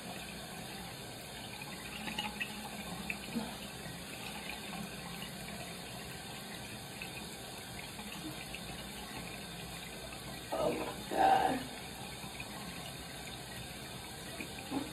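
Bathroom sink tap running steadily, with a short louder sound about ten seconds in.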